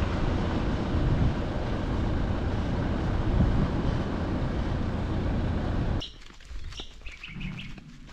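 Steady, deep rushing noise of wind on the microphone. About six seconds in it cuts off suddenly, and birds chirp.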